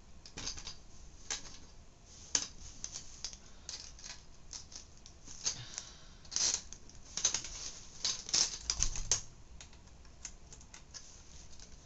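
Irregular small clicks and scrapes of a floppy drive being worked on with a screwdriver to remove its screws, plastic and metal parts knocking together, busiest a little past the middle.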